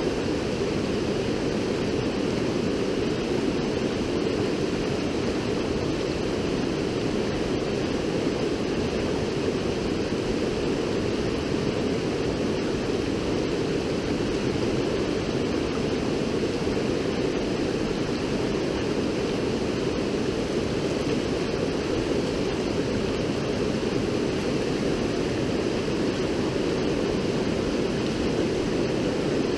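River water flowing and rushing steadily, an even, unbroken sound of moving water.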